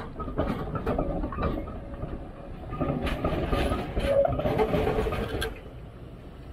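Articulated tram rolling across a road crossing on a curve: irregular clunks as its wheels pass over rail joints, over a dense running noise that fades away about five and a half seconds in.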